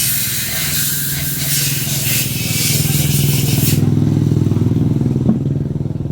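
A loud, steady hiss of air or spray that cuts off sharply after about four seconds, over a steady low engine sound running underneath, with a single click near the end.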